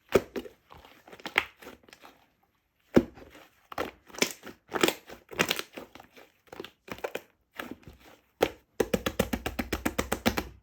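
Crisp crinkling and crackling handling noises: a quick run of clicks at the start, scattered sharper clicks and crackles, then another fast run of clicks near the end.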